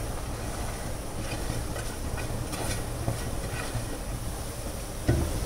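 Soft rustling and a few light ticks as finely chopped broccoli is pushed off a plate into a kadai, over a steady low hum and hiss.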